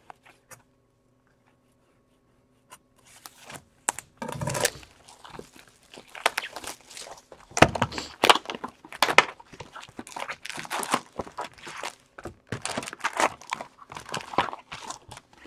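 Plastic shrink wrap cut with a knife and torn off a hockey card hobby box, then the box opened and foil-wrapped card packs pulled out. It is an irregular run of crinkling, tearing and knocking that starts about three seconds in.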